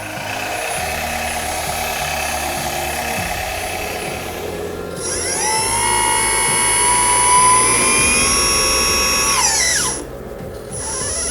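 A 1/14-scale RC hydraulic bulldozer's brushless electric motor whining. The high whine rises in pitch about five seconds in, holds steady, falls away and stops near the end, then starts rising again. Before the whine starts there is a steady mechanical hum.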